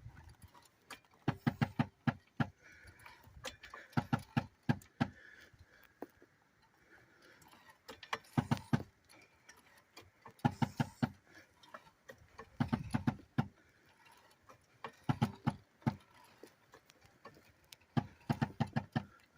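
Car jack being worked to raise the front corner of a car: short runs of rapid clicks every two seconds or so, with pauses between strokes.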